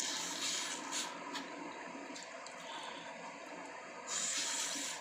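A person with a head cold blowing a congested nose: one blow at the start, two short puffs about a second in, and a second, longer blow about four seconds in.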